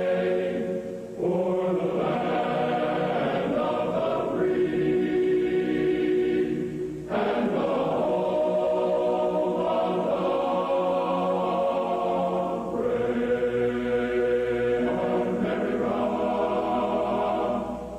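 Choral music: a choir singing slow held chords that change every few seconds.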